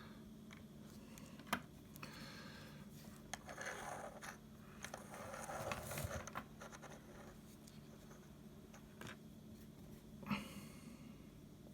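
Faint scraping and rustling with a few sharp clicks as speaker wires are handled and soldered onto a small audio amplifier board, over a faint steady low hum.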